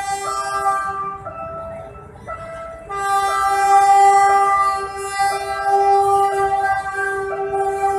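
PNR diesel locomotive's horn sounding long, held blasts while the work train passes the crossing; it drops back about a second in and comes in louder again about three seconds in. A shorter tone repeats about once a second alongside it.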